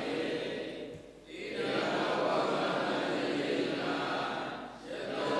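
Voices chanting Pali scripture in unison, in a steady monotone recitation broken by two brief pauses, about a second in and near the end.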